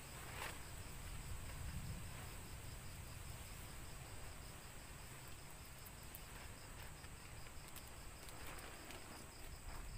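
Night insects chirping in the forest: one steady high trill and another high chirp pulsing at an even, rapid rate, with a few faint clicks over them.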